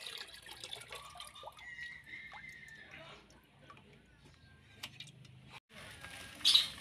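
Coconut water draining through a cloth strainer in an aluminium basin into a plastic bucket, splashing and dripping, thinning to a few drips after about three seconds. Near the end, a short loud crinkle of a plastic bag being handled.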